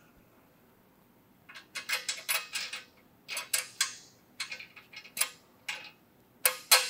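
Steel grade 8 bolts clinking and tapping against the axle clamp plate and the rear-end housing flange as they are fitted by hand. The irregular metallic clicks start about a second and a half in and keep coming.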